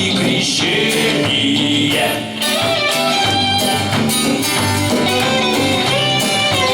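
Band music: an instrumental stretch of a song between sung lines, with steady bass notes under the melody and regular drum hits.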